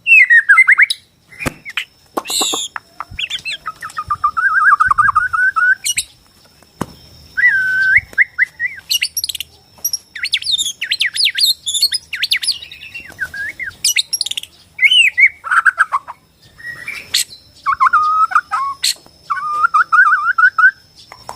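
Bornean white-rumped shama (murai batu Borneo) singing a varied song of whistles, rapid rattling trills and sharp chatters, phrase after phrase.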